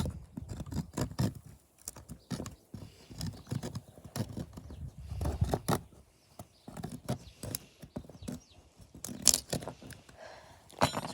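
Small saw blade of a pocket multi-tool being drawn back and forth, a run of uneven scraping strokes with short clicks in between.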